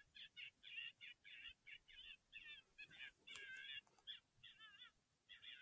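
Faint, rapid bird-like chirping and warbling calls, repeated in quick bursts.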